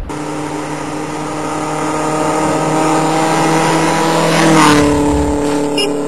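Subaru Impreza rally car's engine approaching at a steady pitch and growing louder, then passing close by about four and a half seconds in, its pitch dropping as it goes past.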